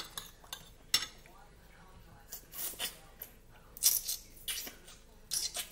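A metal fork clinks twice against a ceramic plate. Then come a run of short wet sucking and slurping noises as stewed chicken feet are sucked and eaten by hand.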